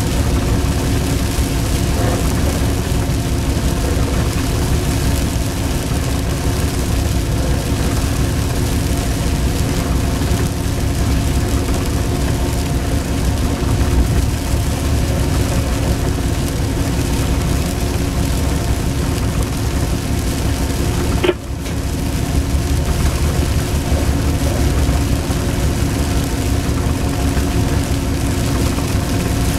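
Steady rumble and hum inside a coal train locomotive's cab while running, with several steady humming tones over a low rumble. About 21 seconds in there is a short click and a brief drop-out.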